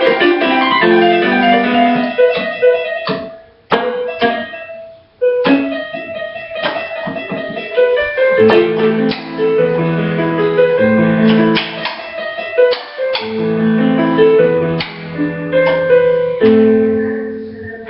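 Keyboard playing a piano melody over low accompanying notes, with a short pause about four seconds in before the playing resumes.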